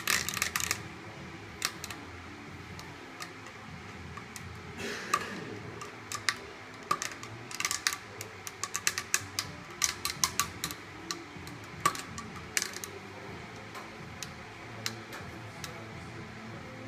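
Metal spoon stirring liquid in a glass jug, clinking irregularly against the glass, with a short ring after some of the strikes. The clinks come in bunches, a run of them right at the start and a longer run in the middle.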